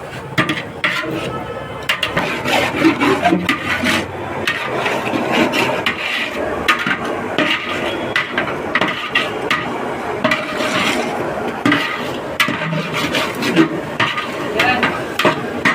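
A spoon or ladle scraping, stirring and clattering in a cooking pan, with irregular short knocks throughout.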